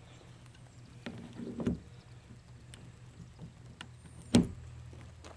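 Rivets being pushed through a nylon zigzag cleat into holes in a plastic kayak hull: a few light clicks and knocks, with one sharp knock about four seconds in, over a steady low hum.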